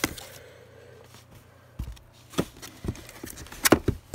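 Boxed items and a card being handled inside a cardboard shipping box: a few short knocks and taps. They start about two seconds in, and the loudest comes near the end.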